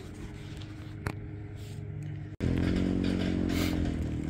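A boat's outboard motor running with a steady low hum, with a single click about a second in. After a sudden cut there is a louder low rumble of wind noise.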